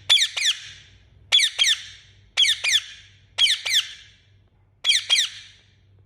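Indian ringneck parakeet giving five loud, high chirps, each a quick double note falling in pitch, spaced about a second apart.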